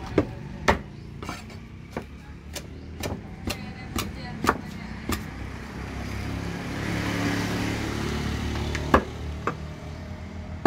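Heavy cleaver chopping barracuda on a thick wooden chopping block: a run of sharp chops about two a second, then a few more near the end. In the middle a motor vehicle's engine noise swells and fades.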